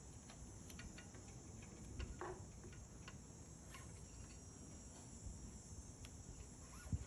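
Faint ambience: a steady high-pitched hiss with scattered faint ticks and clicks.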